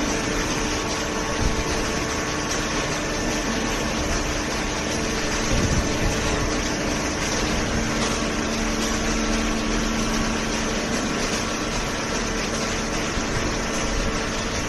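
Horizontal hydraulic baling press running: the steady hum of its hydraulic pump and motor, with a few steady tones over an even mechanical noise.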